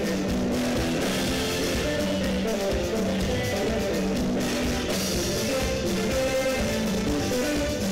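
Live band playing: electric guitars and a bass guitar over a drum kit, with a repeating guitar line and a steady beat.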